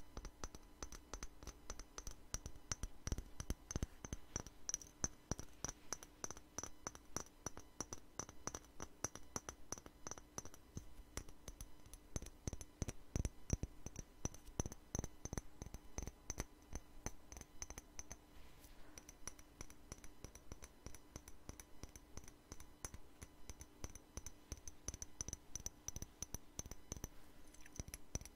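Fingernails tapping fast and unevenly on a clear spray bottle held close to the microphone: a dense run of small crisp clicks, several a second.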